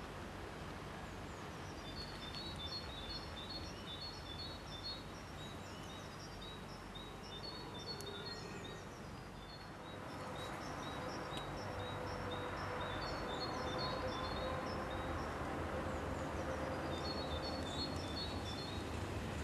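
A bird sings a quick, repeated high phrase over steady outdoor noise. From about halfway, a CFL class 2000 electric multiple unit approaches, its running noise and a steady hum growing louder.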